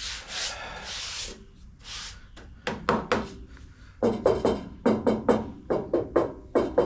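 Rubbing strokes against the body-filler-coated quarter panel: a couple of scratchy swishes, then a quick run of short strokes, about three a second, from about four seconds in.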